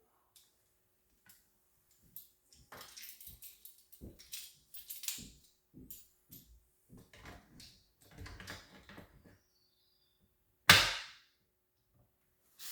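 Kreg door handle jig being handled and slid into position against a door: scattered clicks, scrapes and rustles, then one sharp loud knock a little before the end.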